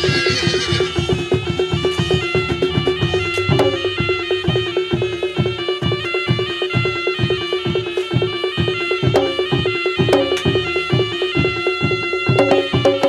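Traditional Javanese reog music played live: a shrill reed trumpet holds a steady note over an even drumbeat of about three strokes a second, with sharp metallic percussion strikes.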